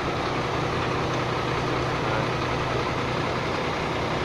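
Howo dump truck's diesel engine running steadily with the throttle held up, driving the hydraulic pump as the tipper body is raised.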